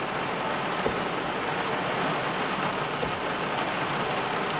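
Heavy rain falling steadily on a car's roof and windscreen, heard from inside the car, with a couple of sharper drop ticks.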